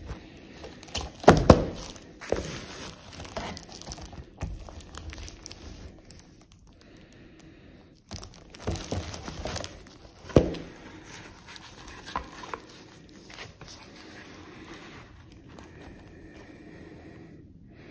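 Handling noise from a plastic Blu-ray case and cardboard slipcase being picked up, turned over and moved about, with crinkling and rustling and a few sharp knocks. The loudest knock comes about a second and a half in, and another about ten seconds in.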